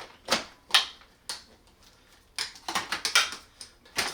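Hard plastic parts of Shark upright vacuum cleaners clicking and knocking as they are handled, a few single knocks at first and then a quick cluster of clicks in the second half.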